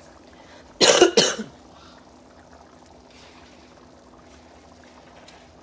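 A person coughs two or three times in a quick burst about a second in. After that there is only a faint steady background hiss.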